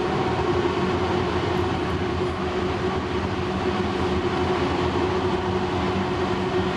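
Siemens S70 light rail car running along the track, heard from inside the passenger cabin: a steady rumble of wheels on rail with a steady hum above it.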